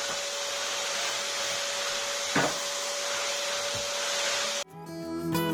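Ordinary vacuum cleaner running steadily with a constant whine, with a sharp knock about two and a half seconds in and a fainter one a second later. It cuts off suddenly near the end.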